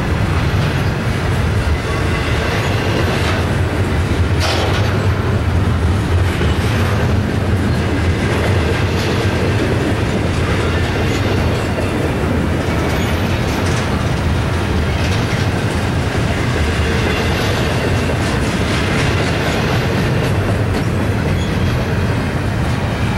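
Union Pacific double-stack intermodal train's container-laden well cars rolling past: a steady low rumble with the clickety-clack of wheels over the rail, and a sharper clack about four and a half seconds in.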